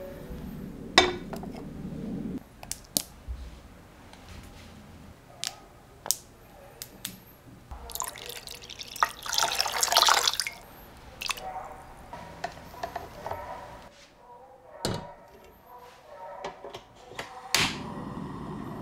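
Kitchen handling sounds: scattered clicks and taps of things set down on a scale and into a metal pot. About nine seconds in, water is poured into the metal pot for about a second and a half. Near the end, a gas stove burner clicks and lights with a steady hiss.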